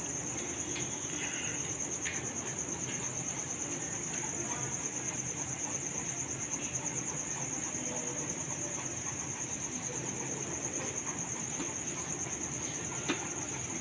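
Crickets trilling steadily, a continuous high-pitched pulsing chirr.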